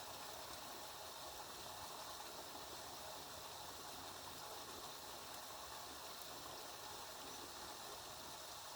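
Steady rain falling, a faint even hiss with no separate drops or gusts standing out.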